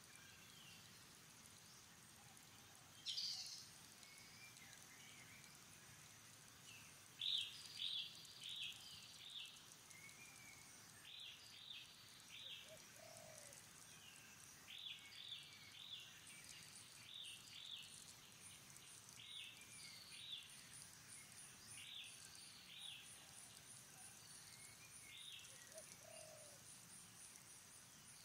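Birds calling faintly in short high chirps, mostly in quick groups of two or three notes that repeat every second or two, with one louder call about three seconds in. A faint, fast, high trill runs underneath from about halfway.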